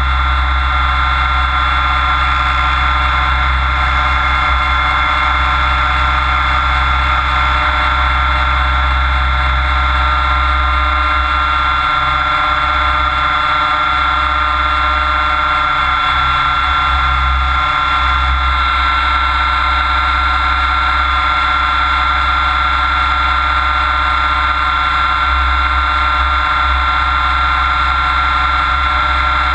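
Mikado Logo 600SX electric radio-controlled helicopter in flight, heard from a camera bolted to its frame. A steady, high motor-and-gear whine runs over the low beat of the rotor and rushing air.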